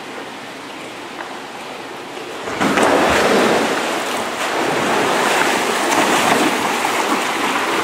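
Water running down the face of an indoor stone-tiled water-wall fountain into its basin, a steady rushing noise that gets much louder about two and a half seconds in as it is heard up close.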